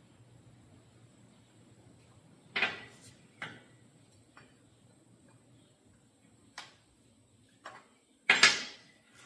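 Metal clinking and clattering from handling a Stihl chainsaw's guide bar and new chain during fitting: a handful of separate clanks, the loudest and longest near the end.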